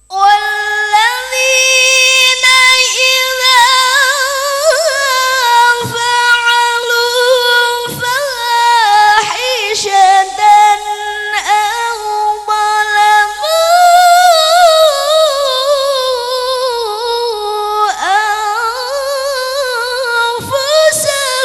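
A solo voice reciting the Quran in melodic tilawah style. It holds long notes decorated with wavering melismatic runs, breaks briefly a few times, and climbs to a high sustained note about two-thirds of the way through.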